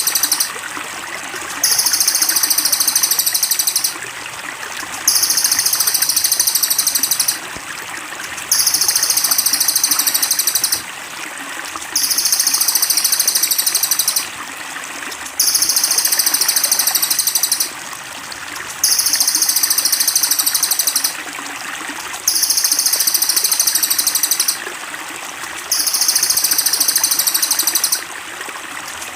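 Looped songbird masteran recording: a dense, high-pitched song phrase about two seconds long, repeated about eight times with short gaps, over steadily trickling water.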